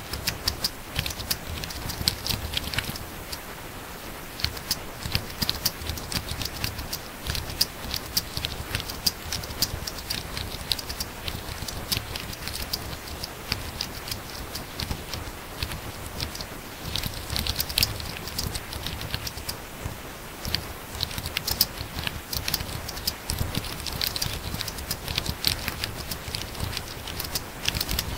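Fast typing on a laptop keyboard: a dense, irregular patter of key clicks, in flurries with brief pauses.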